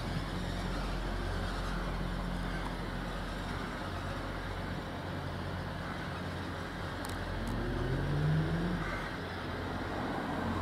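Diesel train engine running steadily at the platform, with a short rise in pitch about eight seconds in as it revs.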